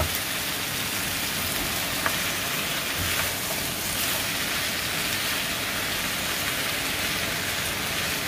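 Diced chayote squash sizzling in hot oil in a frying pan with onion and tomato: a steady hiss from freshly added raw vegetables starting to cook, with a couple of light clicks from stirring.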